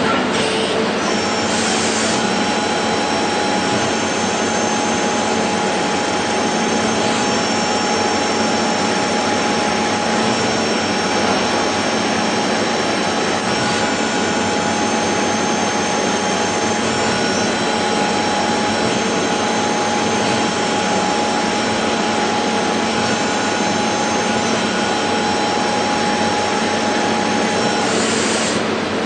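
CNC machine running steadily: a continuous mechanical noise with several steady whining tones over it.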